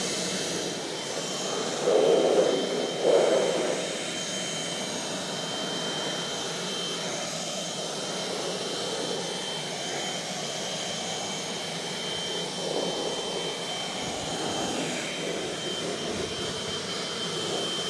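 Handheld cordless blower running steadily, blowing rinse water off a freshly washed car, with a constant high whine over the rush of air. It swells louder twice, about two and three seconds in.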